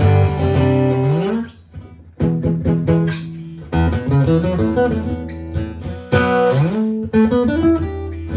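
Acoustic-electric guitar played through an amplifier: strummed chords and picked notes, with two rising slides and a brief pause about two seconds in.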